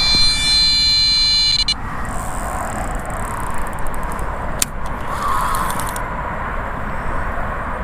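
Electronic bite alarm sounding a continuous tone with several overtones, then cutting off abruptly about two seconds in. This is the signal of a fish taking line on a run. After it there is steady outdoor background noise with a single sharp click about halfway through.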